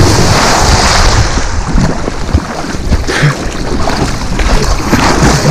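A person plunging into lake water: a loud splash at the start, then water churning and sloshing right at the microphone, with buffeting rumble.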